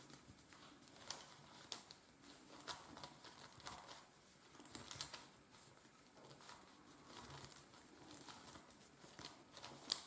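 Faint, soft clicks and rustles of a plastic dodecahedron-shaped twisty puzzle as its faces are turned in the hands; it turns very quietly.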